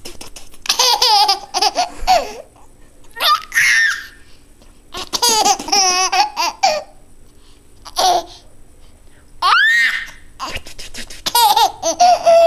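Nearly eight-month-old baby laughing in about six separate bouts, each set off by short sharp spitting noises from an adult.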